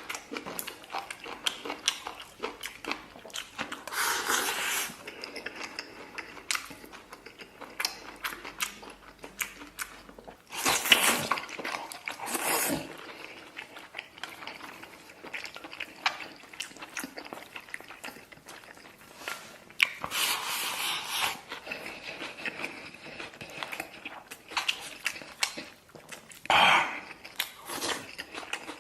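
Close-up eating sounds of a person working through a rice bowl topped with stir-fried pig intestines: steady chewing with many small clicks, and a few louder rushes lasting a second or two each.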